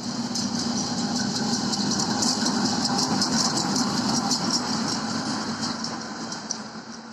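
ČME3E shunting diesel locomotive passing close by, its diesel engine running steadily with rapid clicking from the wheels on the rails. The sound swells to its loudest about two to four seconds in, then fades as the locomotive moves away.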